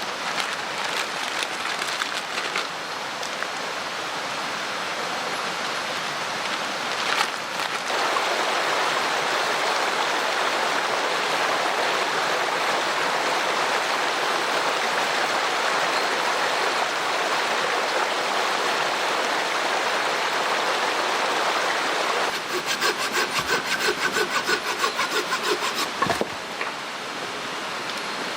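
Mountain stream rushing steadily. For a few seconds near the end, a fast, even, rhythmic clatter with a faint high squeal rises over it.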